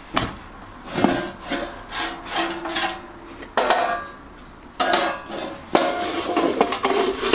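Replacement leaf-blower recoil starter being tried by hand: the cord is pulled out and rewound several times, each pull a short whirring, rasping rub from the spinning pulley.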